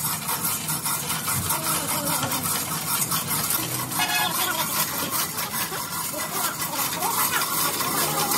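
Hand chain of an overhead chain hoist being pulled hand over hand, a dense rapid rattle of chain links as the hoist works under the weight of a ship propeller, over a steady low hum.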